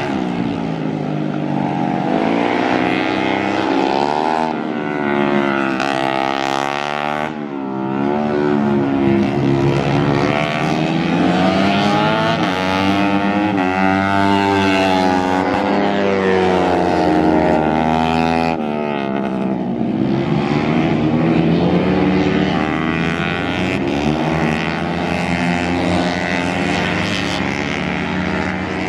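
Small racing motorcycles lapping a track, several at once: their engines rev up and drop back as they accelerate, shift and brake past the microphone, the notes rising and falling and overlapping throughout.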